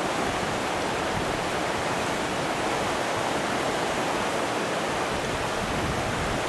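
Steady rush of river rapids, white water running over rocks.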